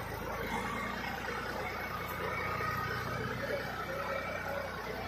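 TAFE 9500 tractor's diesel engine running steadily at low revs as the backhoe-loader tractor moves off slowly.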